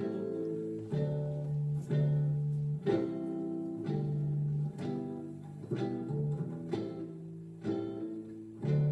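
Acoustic guitar playing the closing instrumental bars of a song: plucked chords about once a second over low bass notes.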